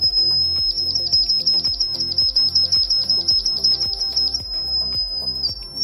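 Piezo buzzer sounding a loud, shrill single tone that warbles rapidly, about seven times a second, for a few seconds, then holds steady and steps slightly in pitch near the end. Background music with a steady beat plays underneath.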